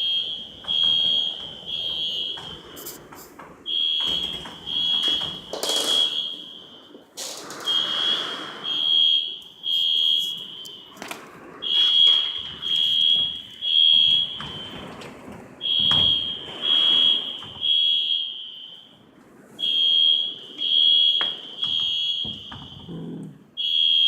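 Fire alarm sounding in a temporal-three pattern: three high beeps, a pause, repeating about every four seconds, which she thinks has to do with the tornado warnings. Rushing noise and a few knocks come between the groups of beeps.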